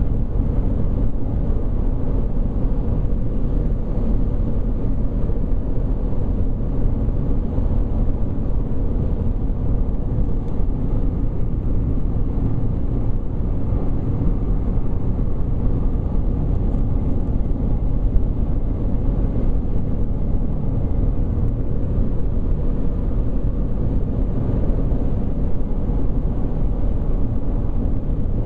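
Steady road noise of a car cruising at highway speed, heard from inside the cabin: a constant low rumble of tyres and engine.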